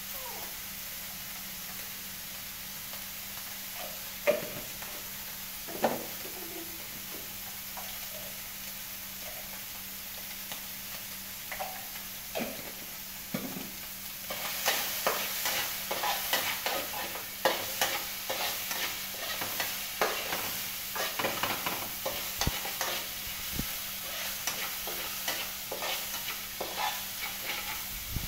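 Food sizzling in a steel wok on a portable gas stove, with two sharp knocks a few seconds in. From about halfway, a metal spatula scrapes and clatters rapidly against the wok as the food is stir-fried.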